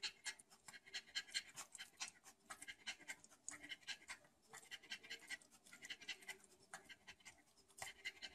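Bulldog puppy panting faintly in short, quick breaths.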